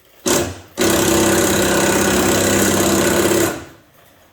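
A power driver runs briefly, then runs steadily for about three seconds with a fast rattle, tightening a bolt on a go-kart seat mount.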